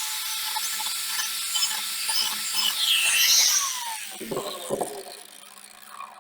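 High-speed power tool cutting holes in a truck bumper part, its whine running steady, then spinning down about three and a half seconds in as it is let off. Two knocks follow.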